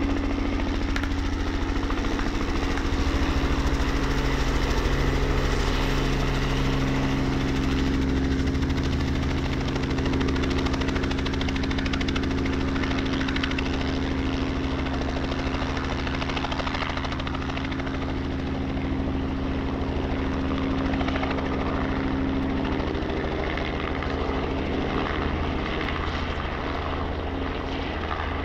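Robinson R44 helicopter hovering close to the ground and setting down on its skids: the steady beat of the two-blade main rotor over the hum of its six-cylinder Lycoming piston engine, with the sound easing a little in the last few seconds.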